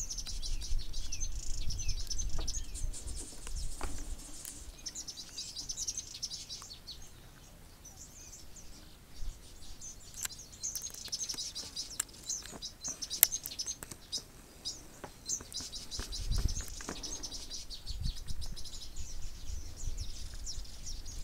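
Birds chirping and twittering continuously in many short high notes, with scattered sharp clicks and a few brief low rumbles, the strongest about sixteen seconds in.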